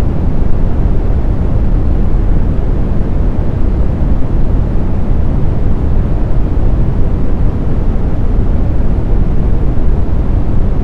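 Smoothed brown noise: a steady, deep hiss that is strongest in the bass and thins out toward the treble, with no tones, music or changes.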